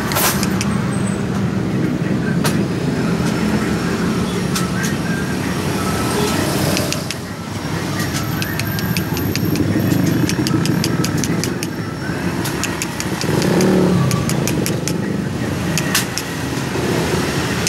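A motor engine running, its low rumble swelling and easing, with quick runs of sharp clicks about eight to eleven seconds in and again near the end.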